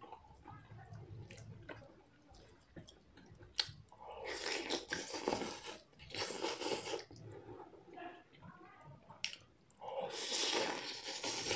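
A person eating noodles: loud wet slurping and sucking of noodles in three bursts, about four seconds in, around six seconds and near the end, with quieter chewing and small clicks of the utensil between.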